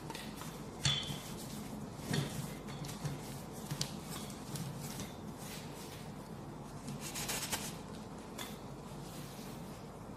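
A few light knocks and scrapes as a round cutter is pressed through rolled pizza dough on a wooden board, with a longer scrape about seven seconds in, over a steady low hum.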